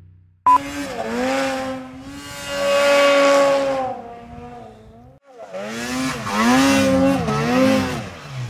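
Arctic Cat snowmobile engine revving hard, its pitch climbing and falling as the throttle is worked, in two long stretches with a brief break about five seconds in.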